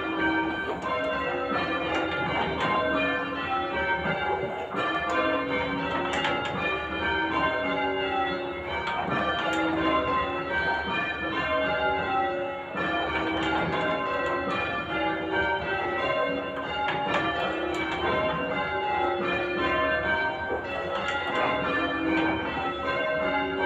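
Church bells in change ringing: a ring of tower bells struck one after another in a steady, unbroken sequence, their order shifting from change to change.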